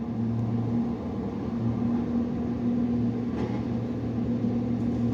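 Engine of a land-clearing tree-cutting machine running steadily, a constant low hum that holds one pitch.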